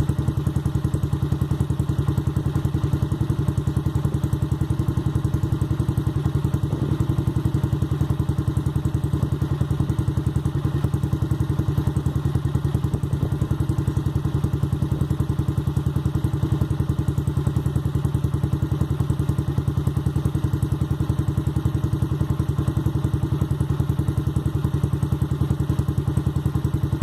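Honda CG 2001 single-cylinder four-stroke motorcycle idling steadily through an aftermarket aluminium 'Boca 8' Roncar exhaust. It gives a fast, even train of exhaust pulses and is not revved.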